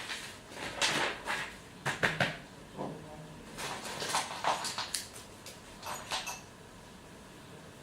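Irregular knocks and clatter of hard objects being handled, about a dozen sharp hits over six seconds, then quieter.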